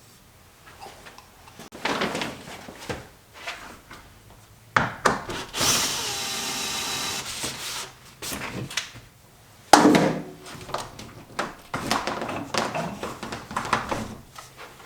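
Wooden pieces knocked and shifted about, with two sharp knocks, and a power tool running steadily for about two seconds near the middle.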